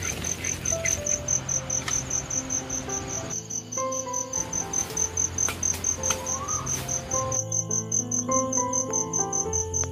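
A cricket chirping in rapid, even pulses on one high note, over soft background music with a slow melody.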